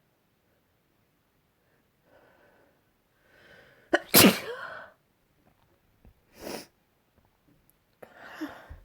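A person sneezing once: a drawn-in breath, then a single loud sneeze about four seconds in, followed by quieter breaths.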